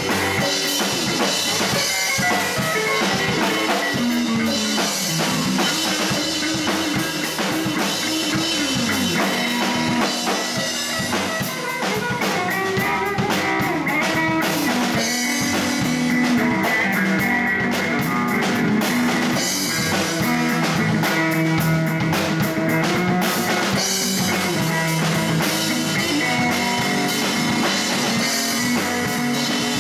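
Live blues band playing without vocals: electric guitar, electric bass and a Ludwig drum kit, the guitar lines bending in pitch over a steady beat.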